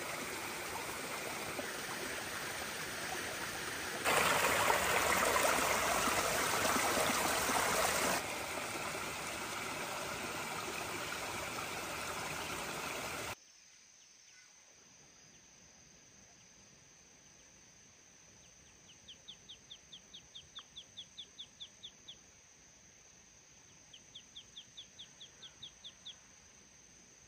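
Small stream running steadily, louder for a few seconds. It cuts off abruptly to a faint outdoor background, where two runs of high, evenly spaced chirps come about five a second, each lasting two or three seconds.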